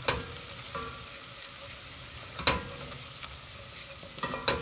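Onion, green chilli and spices frying in a stainless steel pot, sizzling steadily while a wooden spoon stirs them: the spices being cooked briefly before the tomato goes in. A sharp knock of the spoon against the pot comes about halfway through, and a few more clicks come near the end.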